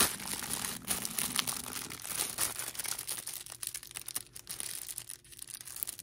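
Plastic packaging crinkling and tearing as it is worked open by hand, a busy crackle in the first half that thins to scattered crinkles later.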